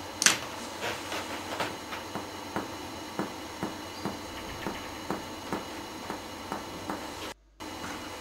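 Finger-on-finger chest percussion: a series of short taps, about three a second, the first the loudest, struck on the plexometer finger over the upper back while percussing upward from the spine of the scapula to find the upper border of the lung apex behind.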